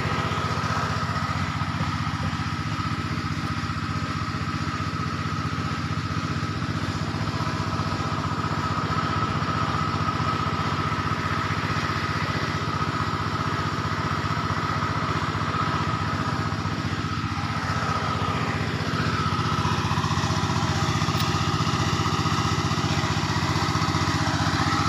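A small engine running steadily at one constant speed, an even hum with a steady higher whine on top of it.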